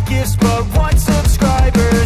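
Background music with a driving beat: drums, a steady bass line and a bright lead melody of short notes.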